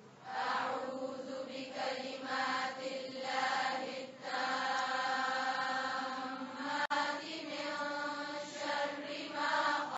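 Soft vocal chanting by a high voice, holding long notes in several drawn-out phrases with short breaks between them.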